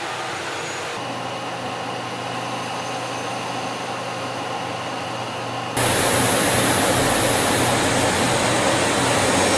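Aircraft engines droning steadily in flight, heard from aboard an aircraft, with a low steady hum under the noise. It changes slightly about a second in, then turns louder and rougher about six seconds in, with a faint high whine on top.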